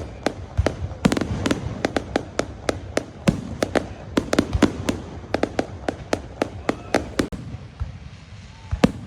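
Fireworks exploding in a rapid, irregular string of sharp bangs and cracks. The bangs thin out about seven seconds in, leaving a few scattered reports.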